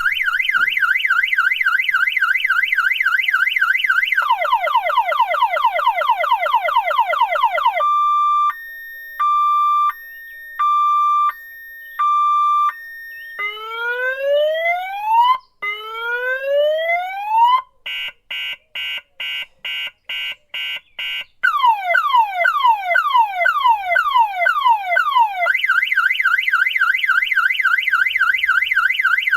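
Car alarm siren going through its cycle of tones: a fast warble, a run of quick falling chirps, a slow two-tone hi-lo beep, two long rising whoops, rapid short beeps, falling chirps again, then back to the warble.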